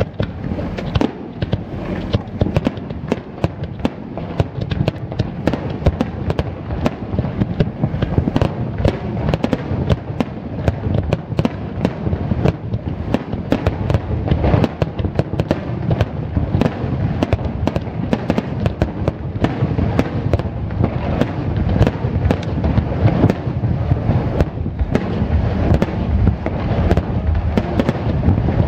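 Aerial firework shells bursting in a rapid-fire barrage, one boom and crackle piling on the next with no let-up.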